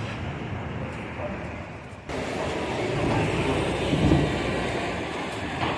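Steady running noise of a moving vehicle, heard from inside, getting louder about two seconds in.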